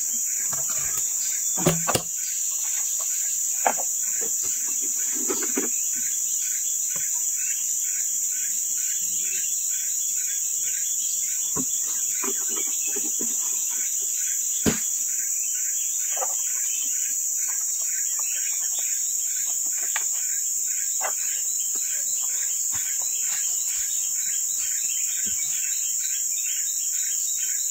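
Steady, high-pitched drone of forest insects, with a fainter chirp pulsing a few times a second beneath it. A few sharp knocks stand out, the loudest about 15 seconds in, as the switched-off chainsaw and wood are handled.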